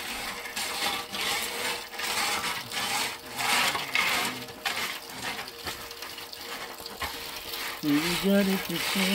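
Steel shovel blade scraping and scooping through loose gravel, in repeated gritty strokes about once a second. Near the end a steady pitched sound comes in.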